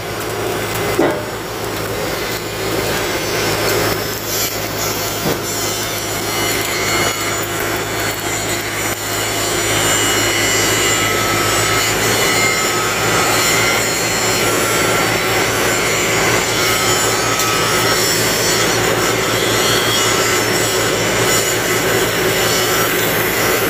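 Loud, steady machinery noise with a rasping, grinding texture, growing over the first several seconds and then holding; a single knock about a second in.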